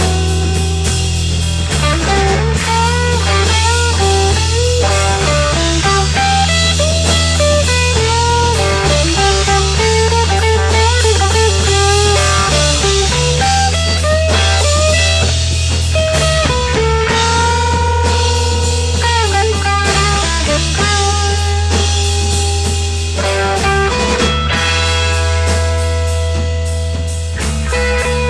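Rock band playing live: a guitar-led passage with a bluesy, psychedelic rock feel over steady bass and drum kit.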